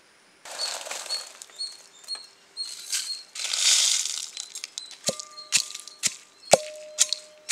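A few seconds of rustling, then chopping: a knife striking about twice a second, each blow with a short metallic ring.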